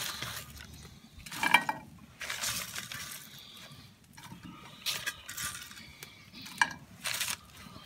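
Crumpled paper lining a stainless steel bowl rustling in bursts as fries are picked out of it, with a few sharp clinks against the metal bowl.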